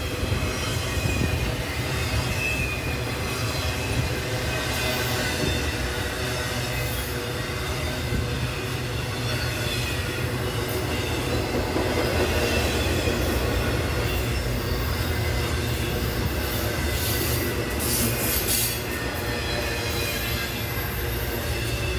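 A train rolling past with a steady low rumble of wheels on rail and a thin, high wheel squeal, plus a short rattle of clatter near the end.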